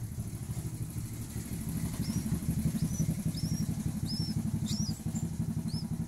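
Bird nestling giving short high cheeps, each a quick upward flick, about two a second from about two seconds in, over a steady low rumble.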